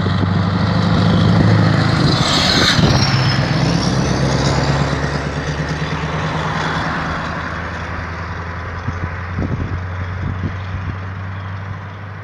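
Straight-piped Scania R620 V8 diesel truck engine running as the truck drives past close by, then fading as it pulls away down the road.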